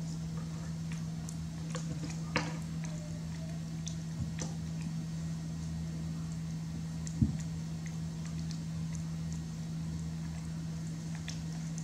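Small clicks and a few light knocks, the loudest a little past the middle, as a baby macaque handles and gnaws a plastic spoon, over a steady low hum.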